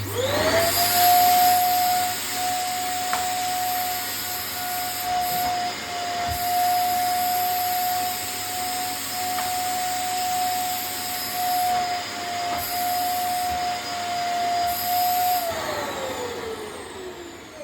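Vacuum cleaner switched on, its motor spinning up within a second to a steady high whine over rushing air. About fifteen seconds in it is switched off and winds down, the whine falling steadily in pitch.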